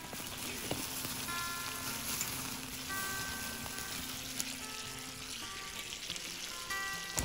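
Olive oil sizzling steadily in a cast-iron skillet of cherry tomatoes and camembert cooking over a wood fire.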